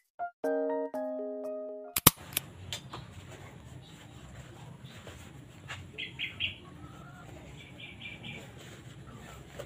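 Gentle keyboard music plays for the first two seconds and cuts off with a sharp click. After that there is a low steady room hum, and a small bird chirps twice in quick runs of three or four high notes, about four and six seconds in.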